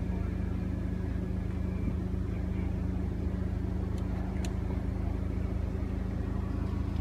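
Power-folding side mirror on an Audi TT being folded in and back out by its electric motor, with a couple of faint clicks about four seconds in, over a steady low hum.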